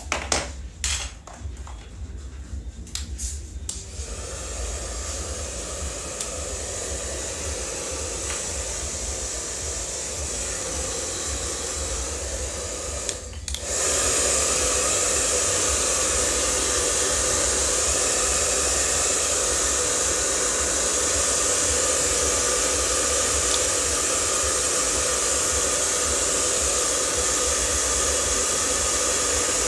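A few knocks, then a handheld hair dryer blowing steadily with a hum, jumping louder about fourteen seconds in.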